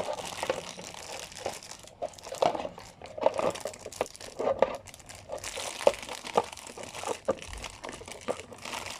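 Plastic toy packaging crinkling and rustling in irregular bursts as it is handled and opened, with scattered small clicks of plastic toy pieces.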